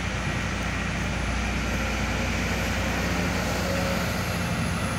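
Heavy diesel engines of a Sumitomo SH210 hydraulic excavator and a dump truck running steadily at a constant pitch.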